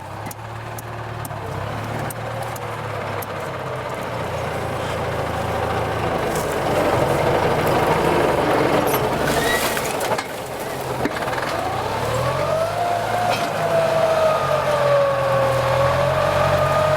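Kubota M9540 tractor's diesel engine working under load while ploughing. In the second half a whine rises and falls in pitch with the engine.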